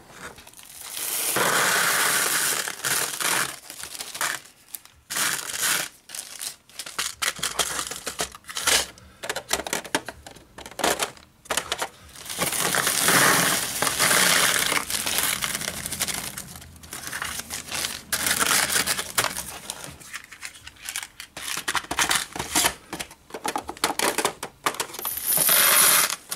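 Small steel fasteners (washers, nuts and bolts) clinking and rattling as they are poured out of plastic bags into plastic storage drawers, with the bags crinkling. There are many quick clicks and several longer rattling pours.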